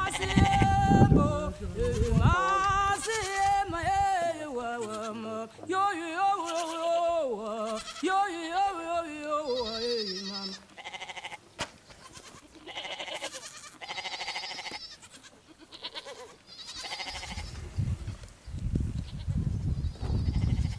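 Goats bleating: several long, wavering bleats in the first half, after a low rumble at the start. Quieter short scuffing noises follow.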